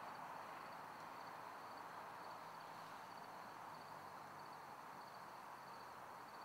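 Faint night ambience: crickets chirping in a steady, regularly pulsing high trill over an even low hiss.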